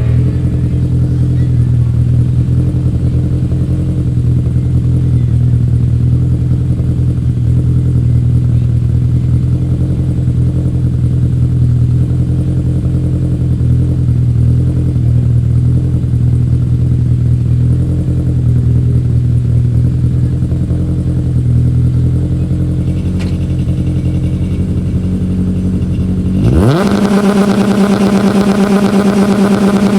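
Lada VFTS rally car's four-cylinder engine running at a steady low note, then revving sharply about 26 seconds in and holding at high revs on launch control, ready for the stage start.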